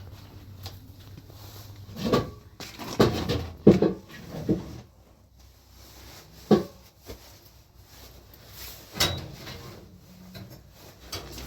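Several separate knocks and clunks, a few seconds apart, like household objects being handled and set down.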